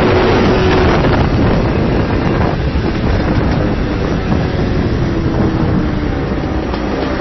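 Yamaha RX135's ported two-stroke single-cylinder engine running at road speed, its tone steady for about a second and then easing off and dropping slightly in pitch, with wind rushing over the microphone.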